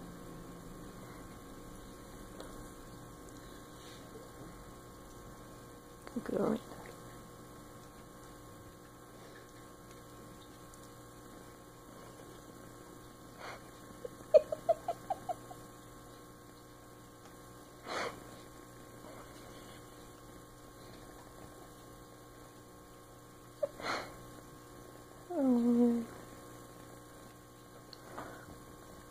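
Steady electrical mains hum under a few short animal sounds from a Great Dane and a kitten snuggling on a bed: brief sniffs and snuffles, a quick run of about six small clicks midway, and a short falling whine-like call near the end.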